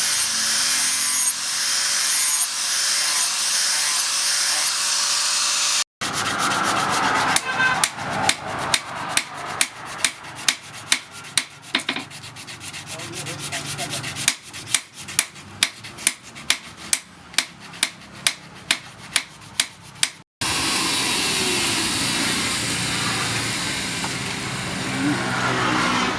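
Hand work on a blade: steady abrasive rubbing, broken in the middle by a run of sharp, evenly spaced strokes about two a second, then steady rubbing again.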